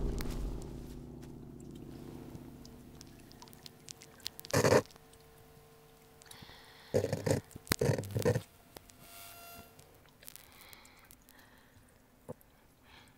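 A low sustained drone fades out over the first second or two. Then come short crunchy bursts of rustling, once about four and a half seconds in and twice close together around seven to eight seconds.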